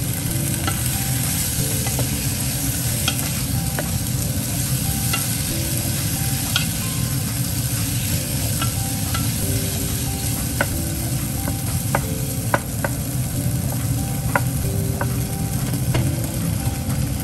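Green beans and tomato wedges sizzling in a nonstick pan while being stirred with a wooden spatula, which knocks and scrapes against the pan in scattered clicks, most often in the second half.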